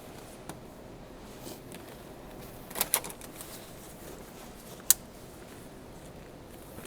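Small handling clicks over a steady low background: two quick clicks close together about three seconds in, and one sharp click about two seconds later.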